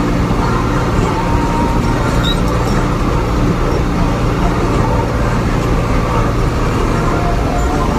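Farm vehicle's engine running steadily, heard from inside the cab while driving, a low even drone with a faint higher whine that comes and goes.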